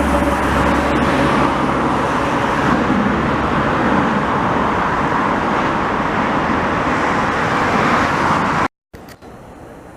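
Boeing 787 Dreamliner passing low overhead on its landing approach, a loud steady jet-engine noise that cuts off suddenly near the end.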